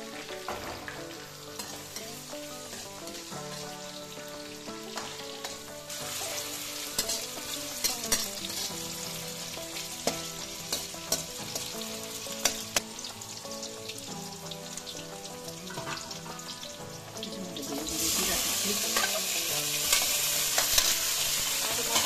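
Sliced onions frying in hot oil in a metal kadai, sizzling steadily, with a metal ladle scraping and clinking against the pan. About eighteen seconds in the sizzle becomes louder, as raw chicken pieces go into the hot oil.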